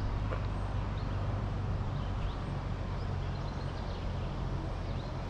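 Open-air ambience: a steady low rumble like distant traffic, with scattered short bird chirps above it.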